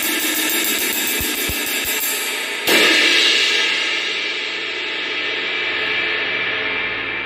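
24-inch Omete Lunar Ride cymbal played with a stick in a quick, even ride pattern, then struck hard about two and a half seconds in and left to wash and ring out, slowly dying away.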